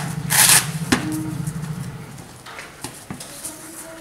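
Fabric blood pressure cuff rustling as it is handled and wrapped round an arm: a short rustle near the start, a sharp click about a second in, then fainter handling noises.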